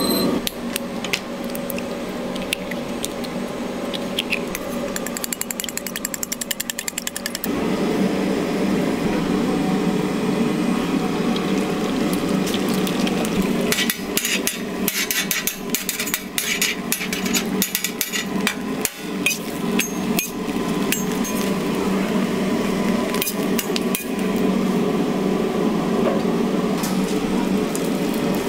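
A metal spatula tapping and scraping on a steel griddle, in irregular clicks with a fast run of even clicks early on and a dense patch of taps midway.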